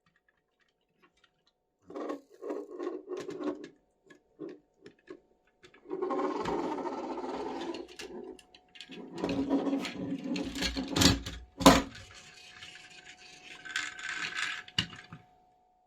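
Toy packaging and plastic toys being handled: bursts of scraping, rubbing and rustling with small clicks, and a sharp knock near the end.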